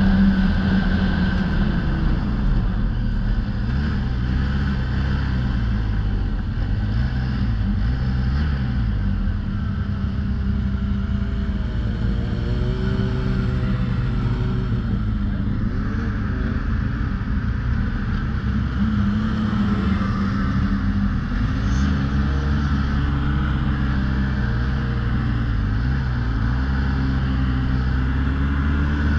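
2008 Polaris Dragon Turbo snowmobile running along the trail, heard from the rider's seat, its engine pitch rising and falling with the throttle. Around the middle, other snowmobiles being passed add higher engine tones.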